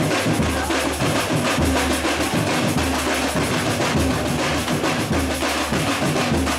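Samba percussion ensemble playing live: deep surdo bass drum beats under dense, rapid tamborim and other hand-percussion strokes.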